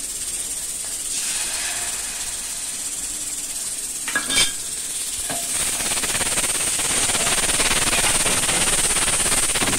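Hot tempering of mustard seeds, cumin and urad dal in oil, sizzling in an aluminium pot as cooked dal is poured in. A steady hiss grows louder about halfway through, with a couple of short metal knocks about four seconds in.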